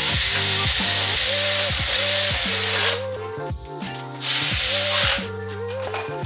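Cordless power ratchet running in two bursts, the first about three seconds long, the second about a second, over background music.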